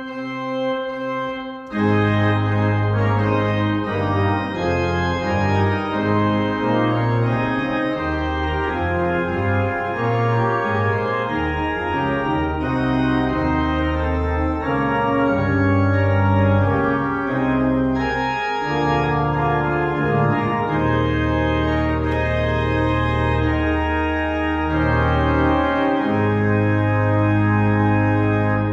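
Church organ playing a closing voluntary after the service. It opens with a few soft held notes, then swells to full sustained chords over deep pedal notes about two seconds in.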